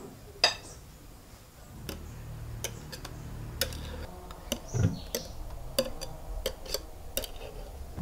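Irregular sharp clicks and light clinks of a utensil against a mixing bowl as cake batter is mixed, with a faint low hum underneath from about two seconds in.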